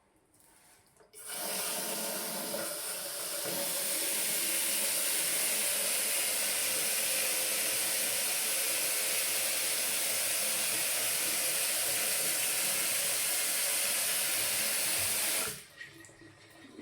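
Water running steadily from a bathroom fixture. It is turned on about a second in and shut off sharply near the end.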